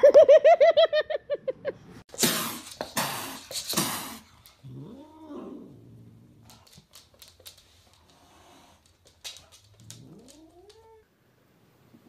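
Cats yowling and meowing: a loud, wavering yowl at the start, harsh noisy bursts about two to four seconds in, then two quieter meows, the last one rising in pitch.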